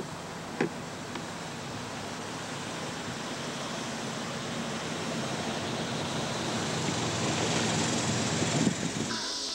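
Steady rushing of wind and water around a moving canoe, growing slowly louder, with a short knock shortly after the start and another near the end.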